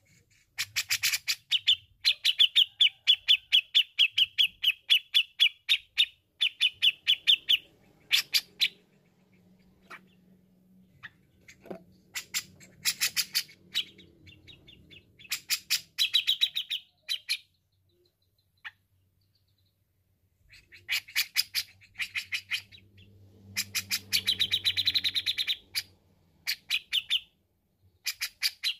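Grey-cheeked bulbul (cucak jenggot) singing in fast chattering runs of sharp repeated notes, in several bursts with short pauses and a longer quiet gap a little past the middle.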